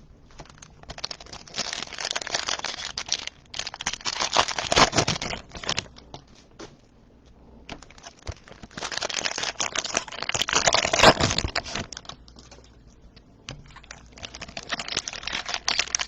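Plastic wrapping on a trading card box or its packs crinkling and tearing as it is ripped open, in three stretches with short pauses between.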